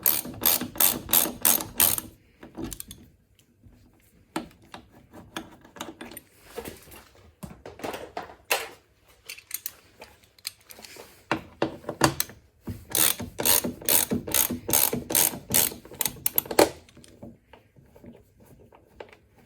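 Hand ratchet clicking in quick even runs while undoing the bolts that hold a car door lock in place: a short run at the start and a longer one about twelve seconds in, with scattered clicks and knocks between.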